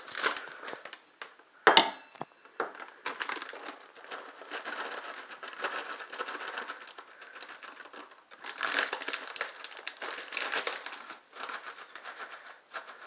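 Crinkly package of unsweetened coconut flakes rustling as the flakes are scooped out with a measuring cup, with a sharp click near the start.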